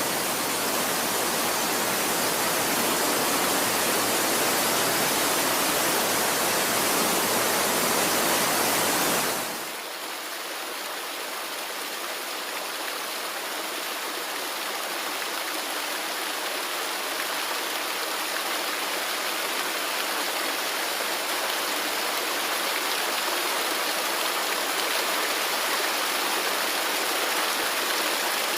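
Steady rush of running river water. About a third of the way in it cuts abruptly to a quieter, thinner-sounding stretch of flowing water.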